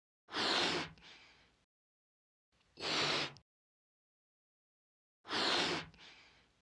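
Three breathy puffs of air blown into a balloon to inflate it, each about half a second long and a couple of seconds apart.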